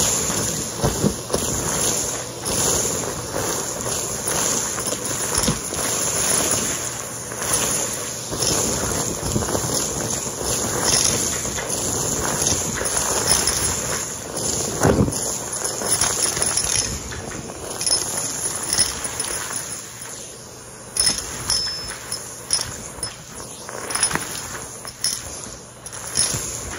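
Vacuum cleaner running with its bare metal wand sucking up a pile of lint, confetti and small plastic bits from carpet, with a constant crunching rattle of debris hitting the tube. The crackle thins out in the last several seconds as the pile is cleared.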